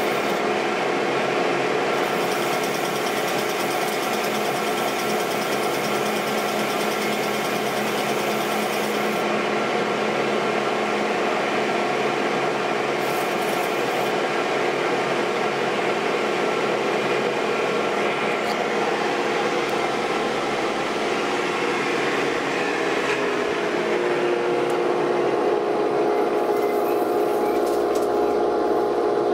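Metal lathe running steadily, its gears and spindle whining while a cutting tool turns a thick steel plate disc. About three-quarters of the way through the tone changes as a short length of steel pipe is turned instead.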